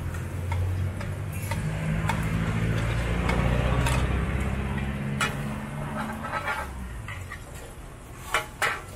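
Egg batter and mussels sizzling on a hot flat iron pan for a mussel omelette, over a low motor hum that fades out after about six seconds. Near the end, a metal ladle clinks twice against the pan.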